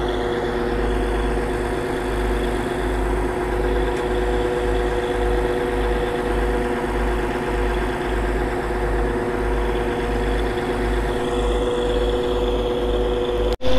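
Sand-dredging machine's engine running steadily, a constant hum over a pulsing low throb, breaking off for an instant near the end.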